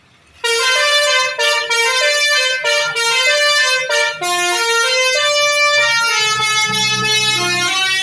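Tour bus's Basuri telolet horn playing a tune of quick, stepped notes, starting suddenly about half a second in and running on, with a low rumble underneath in the second half.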